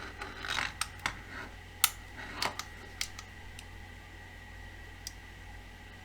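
Sharp plastic clicks from an NF-388 LAN cable tester being handled: an RJ45 patch lead clicked into its port and its buttons pressed. There are about seven scattered clicks, the loudest about two seconds in.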